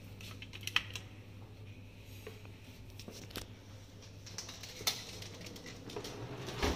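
Scattered light clicks and knocks as a key card goes into a hotel room's wall power slot and someone walks in handling things, with the sharpest click about a second in. A low steady hum runs underneath.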